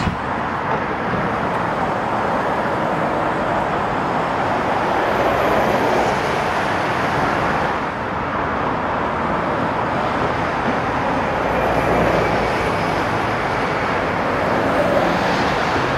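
Steady road traffic noise from cars, buses and trucks passing on a busy multi-lane road, with a slight dip in level about halfway through.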